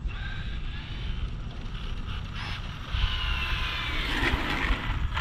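Arrma Limitless RC speed-run car's high-pitched motor and gear whine, faint at first, then louder and clearly falling in pitch about three seconds in. Wind rumbles on the microphone underneath.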